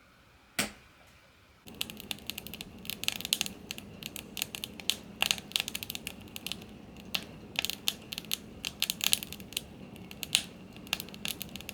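Wood fire crackling in a woodstove: a run of irregular sharp pops and snaps that starts after a single click.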